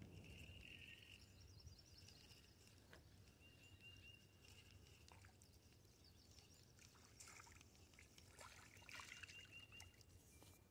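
Near silence: faint outdoor ambience, with a thin high tone that comes and goes and a few light clicks.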